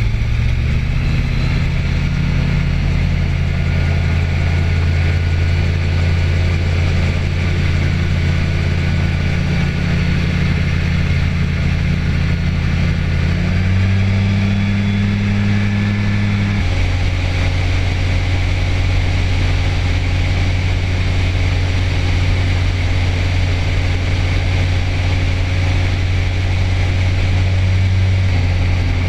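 Light aircraft's piston engine and propeller running steadily in flight. The engine note steps up in pitch about halfway through, then drops back about three seconds later.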